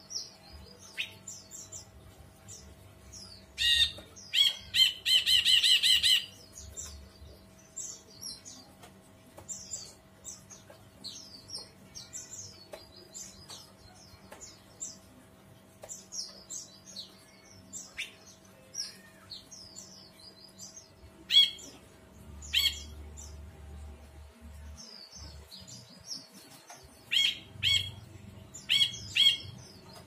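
Caged brinji kelabu (grey bulbul) calling and singing: many short, high chirps and whistled phrases, with a loud rapid trill lasting about two seconds about four seconds in and loud sharp calls again past the middle and near the end. A faint steady hum runs underneath.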